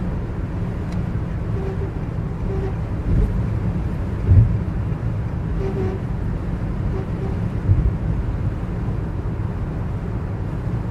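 Cabin noise inside a Nissan Livina on the move: a steady low drone with a few heavier low thumps, about 4 and 8 seconds in. The owner calls it a nerve-rackingly loud abnormal noise, which the Yulon Nissan service centre says is normal.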